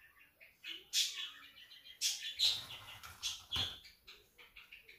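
Small birds chirping in short bursts and quick trills, with a single soft knock about three and a half seconds in.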